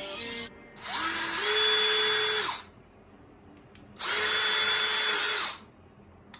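DeWalt DCD778 18V brushless cordless hammer drill running free with an empty chuck, twice: the first run winds up to speed and runs down again, and the second starts about four seconds in and stops after about a second and a half. Each run is a steady motor whine.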